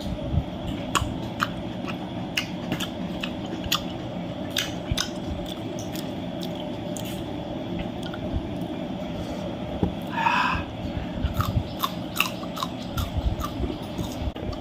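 A person chewing food close to the microphone, with many short, sharp crunches and mouth clicks over a steady low rumble in the background.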